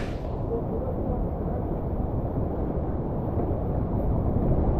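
Rushing whitewater heard from underwater: a loud, muffled, low rumble of the river. The higher splash and hiss cut off suddenly right at the start, as the camera goes under.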